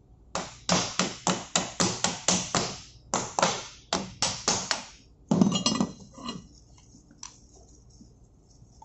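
Rapid hammer blows, about four a second and some sixteen in all, on the union fitting of a marine main engine fuel oil high pressure pipe, tightening it over a new seal ring. A louder metallic clatter follows about five seconds in, then a couple of light clicks.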